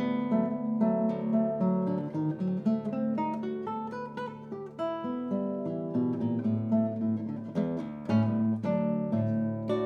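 Solo acoustic guitar playing a fingerpicked choro piece: plucked bass notes under a quick running melody.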